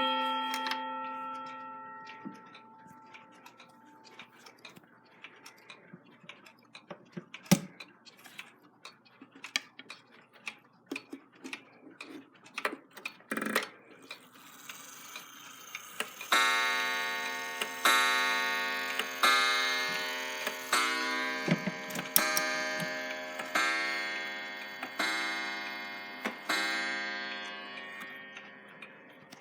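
Mechanical chiming clock ticking, then about sixteen seconds in striking the hour: about eight evenly spaced, rich chime strokes, each ringing and dying away before the next.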